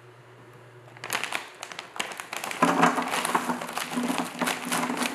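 Plastic bag crinkling as breaded nuggets are poured from it, the nuggets clattering onto a round baking pan, starting about a second in. A low steady hum comes in partway through.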